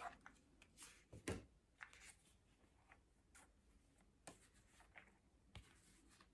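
Faint rustling and light clicks of hands unwrapping packaging and opening a small jewellery box, with a sharper knock about a second in and a few more later.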